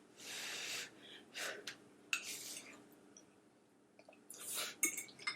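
Breathy blowing on a forkful of hot spaghetti, a rush of air lasting just under a second, followed by a few short clicks of cutlery and mouth noises as she starts to eat.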